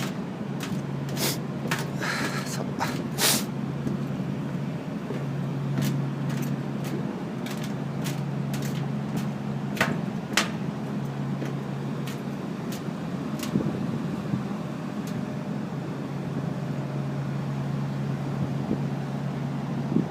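A steady low mechanical hum that drops out and comes back a few times, over a background rumble, with scattered sharp clicks and taps.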